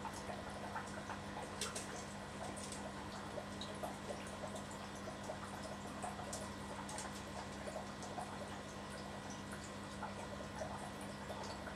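Faint drips and small lapping of water in a shallow turtle tank, with scattered light clicks, over a steady low hum.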